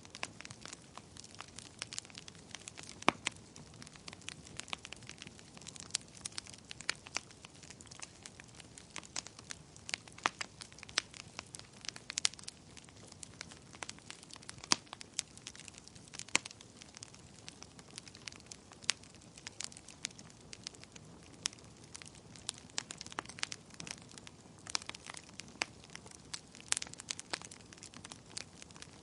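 Wood fire burning in a fireplace: a steady run of sharp, irregular crackles and pops over a faint low hiss.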